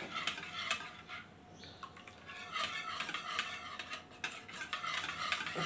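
Wire whisk beating a thin curd and gram-flour mixture in a bowl: irregular wet clicks and scrapes of the wires against the bowl. It eases off for about a second, starting about a second in, then picks up again.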